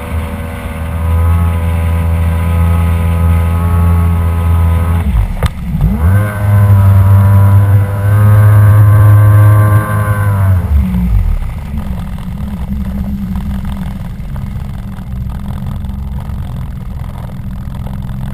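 Kawasaki 1100 ZXi jet ski's three-cylinder two-stroke engine running steadily under tow load. About five seconds in it briefly drops in pitch, then revs back up to its loudest for several seconds. Near eleven seconds the throttle comes off and it settles to a low, quieter idle.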